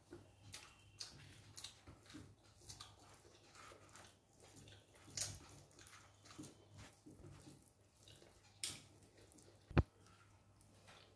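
Faint eating sounds of rice and chicken being eaten: a run of small wet clicks from chewing, with a dull thump near the end.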